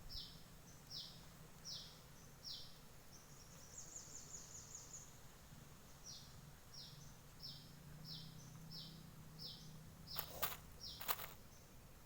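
A bird calling over and over: a short falling note repeated about every three-quarters of a second, with a quicker, higher trill around four seconds in. Two sharp clicks near the end.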